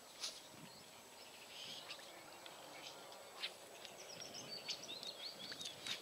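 Quiet outdoor ambience with a small bird chirping quickly through the second half and three short sharp clicks: one just after the start, one midway (the loudest) and one near the end.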